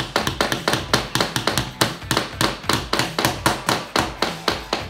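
Small 4-ounce claw hammers driving little nails into the wooden blocks of a toy truck kit. Several hammers are going at once, giving rapid, uneven tapping at about six blows a second.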